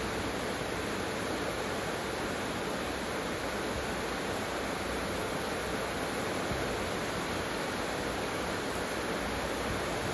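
Heavy tropical rain falling on clay roof tiles and palm leaves, a dense, steady hiss that does not let up.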